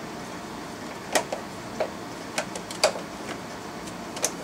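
Sharp plastic clicks and snaps from the underhood fuse and relay box as its plastic cover is fitted and pressed shut. About six irregular clicks, the loudest about three seconds in.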